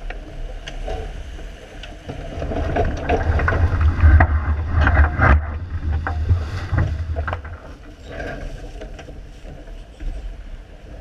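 Wind buffeting the microphone over water rushing past the hull of a J80 racing sailboat. The rumble is heaviest through the middle, with scattered knocks and rattles from sails and rigging.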